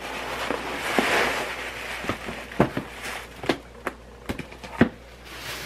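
Packaging being handled: paper rustling for the first couple of seconds, then a run of about seven sharp knocks and taps as a cardboard box is moved about.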